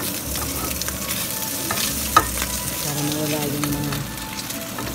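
Hot nonstick frying pan sizzling as an oiled paper towel is rubbed around it, greasing it between pancakes, with light scraping and small clicks and one sharper click about two seconds in.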